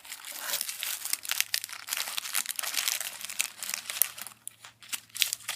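Packaging being handled: plastic wrappers and paper crinkling and crackling in a dense, irregular run that thins out near the end.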